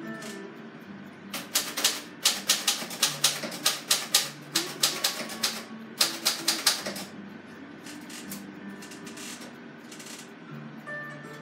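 Typewriter mechanism clicking rapidly, about five or six sharp clicks a second, in a long burst starting about a second in, with a few more clicks later on. Soft radio music plays underneath.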